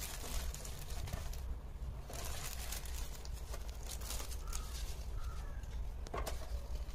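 Paper seed packets and a clear plastic bag rustling and crinkling as they are handled, in irregular bursts, with a sharper crackle about six seconds in. A steady low hum lies underneath, and a few faint short chirps come through around the middle.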